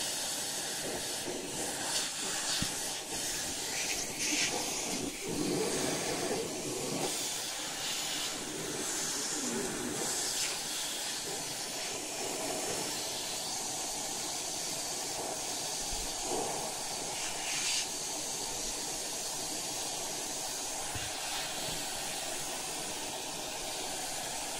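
Central vacuum hose and brush attachment sucking air with a steady hiss. The sound swells and flutters unevenly for about the first ten seconds as the cat presses and rubs his fur against the brush nozzle, then settles to a steadier hiss.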